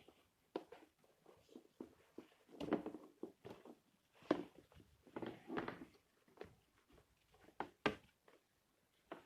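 Cardboard board-game components being handled: rustling and sliding with a scatter of light knocks and taps, the sharpest a little after four seconds and again near eight seconds.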